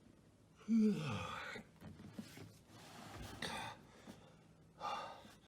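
A man yawning after an apomorphine injection, the drug provoking his yawning attack: a sudden loud voiced gasp about a second in, its pitch falling, trailing into breath, then two more breathy sounds near the middle and near the end.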